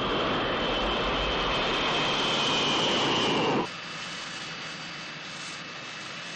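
Jet aircraft engines running, a loud rushing noise with a high whine that sinks slightly in pitch, cutting off sharply about three and a half seconds in to a quieter steady jet hum.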